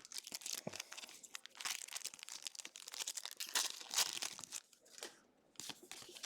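Foil trading-card booster pack wrapper crinkling and tearing as it is opened, a dense run of crackly rustling that pauses briefly near the end.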